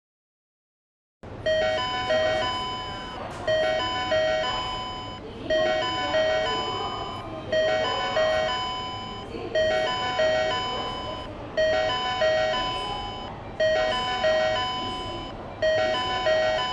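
Sotetsu Line station platform chime: a short electronic bell-like melody of about two seconds, played over and over, about eight times, starting about a second in over low station background noise.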